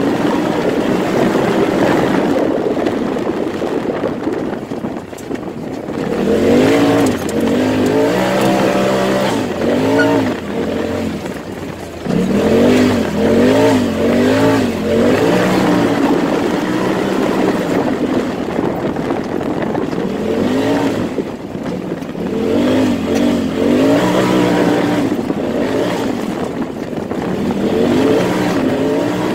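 Turbocharged Turbo S side-by-side engine revving up and down repeatedly as the machine is driven hard around a dirt track, with brief lifts off the throttle about five and twelve seconds in.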